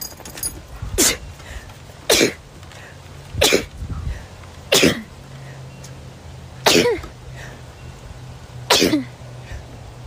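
A young woman sneezing six times in a row, one every one to two seconds, each a sharp burst falling in pitch. The sneezes are a photic sneeze reflex, set off by stepping into bright sunlight.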